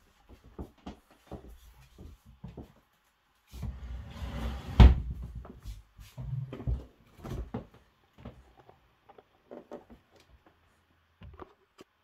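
Scattered handling knocks and rustles with one loud knock about five seconds in, then the door of a Hotpoint XEX95T two-door fridge is pulled open by its handle.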